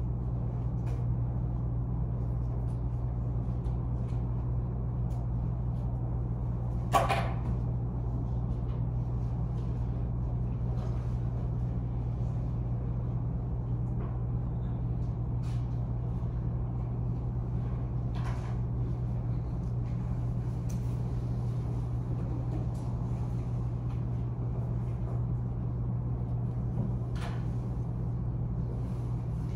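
Classroom room tone: a steady low hum with a few scattered faint clicks and knocks, the clearest about seven seconds in.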